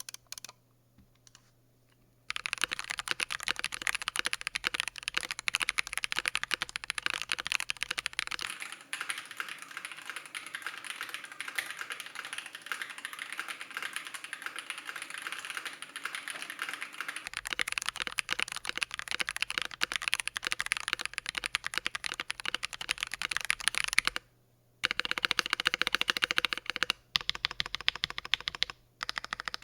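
Fast, continuous typing on an Akko MOD007s V2 gasket-mount aluminium mechanical keyboard, fitted with Akko POM Pink switches, as a typing sound test. The keystrokes start a couple of seconds in and pause briefly near the end before resuming.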